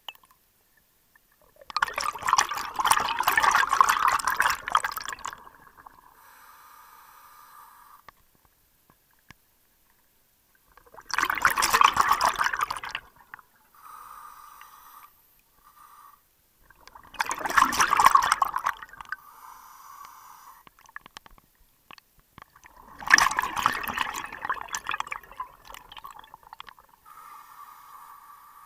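A scuba diver breathing through a regulator underwater: four loud bursts of exhaled bubbles, about six seconds apart, each followed by a quieter regulator hiss.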